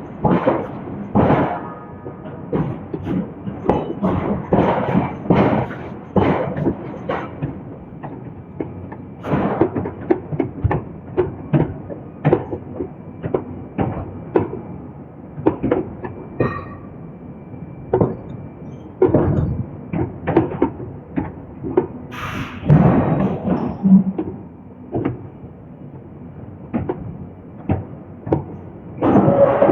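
Hydraulic forging hammer striking steel billets in an uneven series of heavy blows, roughly one to two a second and varying in strength.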